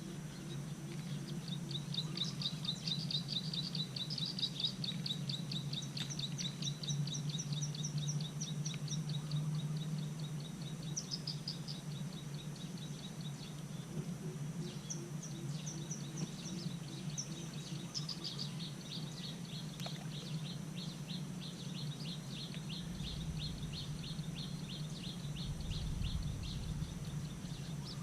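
A bird calls in two long runs of rapid, evenly repeated high chirps, with a short pause between them, over a steady low hum.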